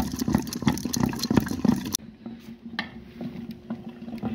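Wooden ghotna mashing thick, wet sarson da saag in a pot, with squelching strokes about three a second. The strokes cut off abruptly about two seconds in, leaving a few faint ticks and a low steady hum.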